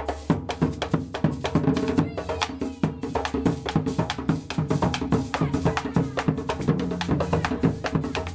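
Music with a fast, steady percussive beat over bass and melody, stopping abruptly at the end.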